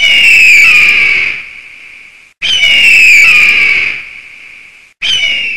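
Intro sound effect of a shrill, raspy bird-of-prey screech, its pitch falling slightly. It plays three times about two and a half seconds apart, and the third is cut short.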